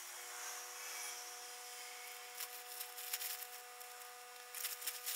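Rustling and crinkling of a nylon tent and plastic tarp being handled as the tent is unpacked and spread out, in two clusters about two and a half seconds in and near the end. Faint steady tones hold underneath.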